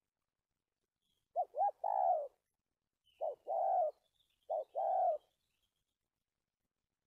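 Spotted dove cooing: three coo phrases about a second apart. The first opens with two quick short notes before a longer coo, and the other two each open with one short note before the longer coo.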